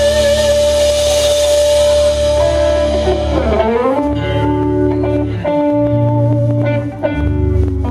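Instrumental rock played live by a trio: electric guitar holding sustained lead notes over bass guitar and drums. About three and a half seconds in, the guitar pitch swoops down and back up.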